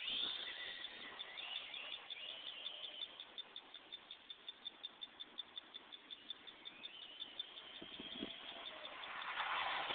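Traxxas Slash VXL RC truck's brushless electric motor whining, then fading as the truck drives off; it rises again near the end as the truck comes back. Between the two, the loudest thing is an even run of high chirps at about four or five a second.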